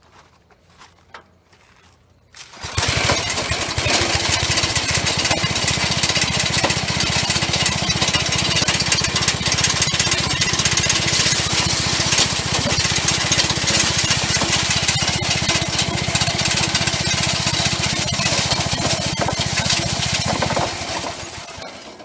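Wood chipper converted into a bean thresher, its small gasoline engine running steadily with the threshing drum slowed to about 500 RPM while dry bean plants are fed in and smashed. The noise comes in suddenly about three seconds in and dies away near the end.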